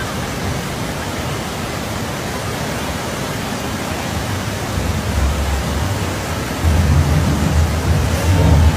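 Flash-flood torrent rushing past in a steady roar of water, with a heavy low rumble coming in about five seconds in and growing louder toward the end.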